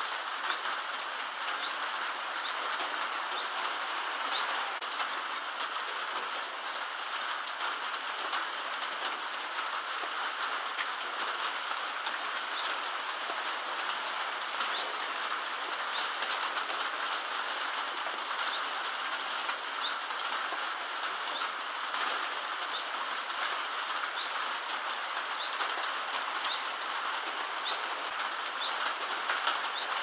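Steady rain pattering, a constant hiss dotted with fine ticks. A small bird repeats a short high call every second or two.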